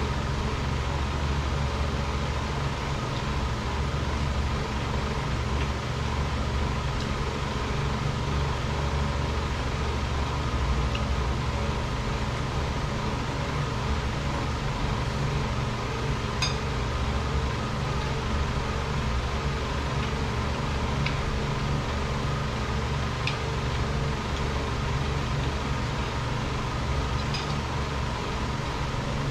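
Steady mechanical hum with a low drone and a few steady tones, unchanging throughout. A few faint clinks of a spoon against a plate come in the second half.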